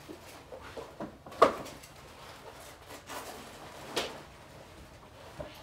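Two sharp knocks over quiet room noise, the first and louder about a second and a half in, the second about four seconds in.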